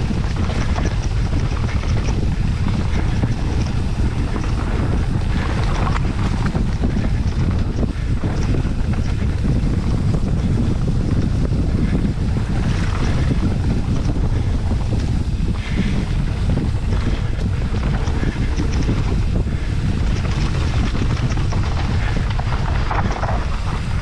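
Steady wind noise buffeting the microphone of a bike-mounted camera while riding a mountain bike along a dirt trail.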